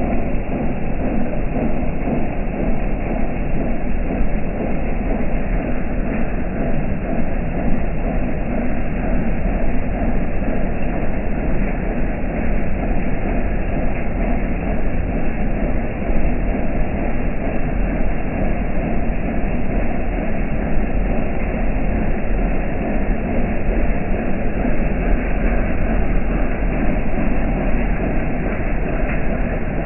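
Rain falling steadily, a dense even noise with no let-up.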